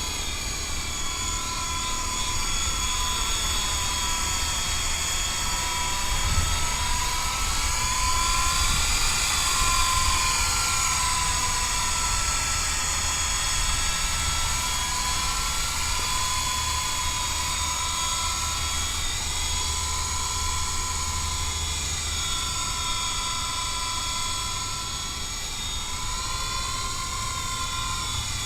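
MJX F45 RC helicopter in flight: a motor and rotor whine that rises and falls in pitch several times as it manoeuvres. A low wind rumble buffets the microphone.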